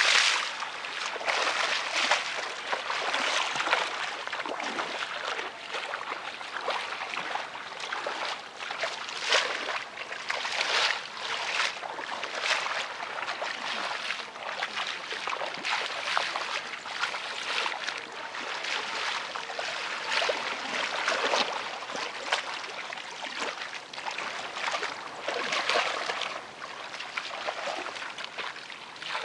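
Bare feet wading and kicking through shallow muddy water, a continual sloshing broken by repeated splashes every second or two.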